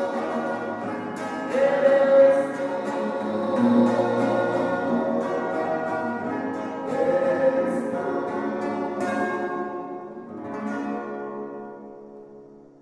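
Two male voices sing in harmony over two acoustic guitars, a requinto and a guitar. About ten seconds in the singing stops, and a final strummed chord rings out and fades away, ending the song.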